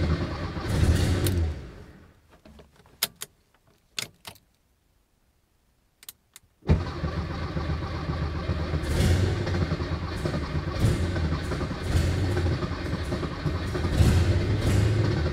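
Dodge Charger Daytona V8 engine running loud, then stopping about two seconds in. A few sharp clicks follow in near silence, then the engine fires abruptly at about seven seconds and runs loud and uneven to the end.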